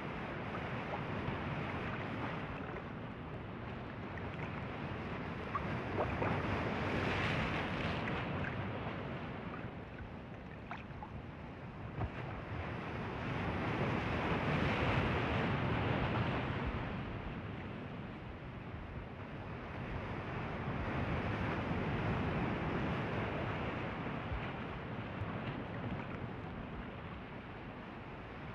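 Ocean surf: a steady wash of breaking waves that swells and fades roughly every seven or eight seconds.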